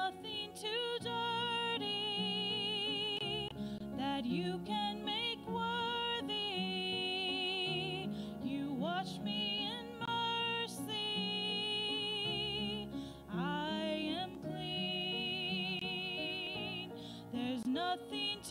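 A woman singing a slow solo song into a microphone, holding long notes with vibrato, over instrumental accompaniment.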